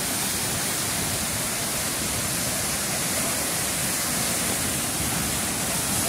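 Tall waterfall plunging down a cliff into a rock pool: a steady, even rush of falling water.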